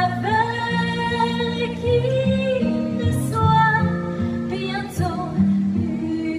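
A woman singing long held notes over instrumental accompaniment, with a lower line stepping between notes underneath.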